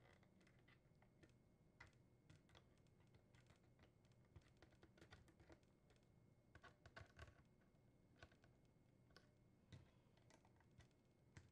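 Near silence with faint, irregular small clicks and taps of pliers working the retaining tabs of a dishwasher door's dispenser opening, bending them inward; the clicks come thickest a little before the middle.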